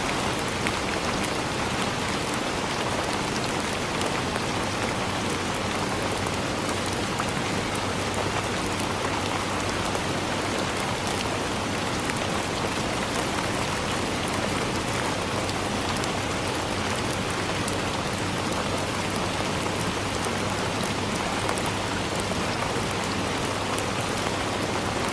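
Steady rain falling on forest leaves, a dense even patter of many small drop ticks.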